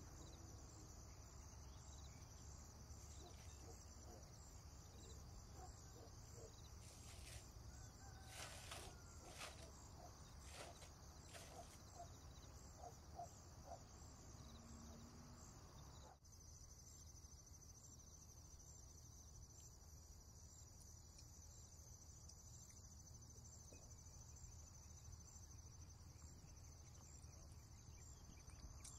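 Near silence: a faint steady high-pitched hiss over a low hum, with a few faint soft clicks and taps in the middle.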